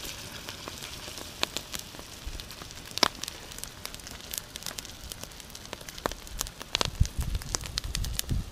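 Wood campfire crackling and popping under salmon sizzling in a cast-iron skillet. A low rumble comes in about seven seconds in.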